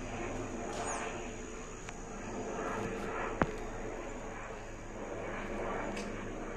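Airbus H145 helicopter passing at a distance: a steady drone of rotor and engines. A single sharp click about three and a half seconds in.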